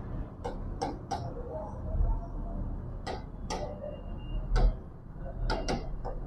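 Pen tip tapping and clicking on the glass of an interactive whiteboard while writing, a dozen or so sharp, irregular clicks over a low mains hum.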